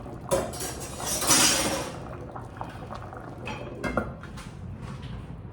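Metal utensils clinking and scraping against a cooking pot: a few sharp clinks, with a longer, louder scrape about a second in.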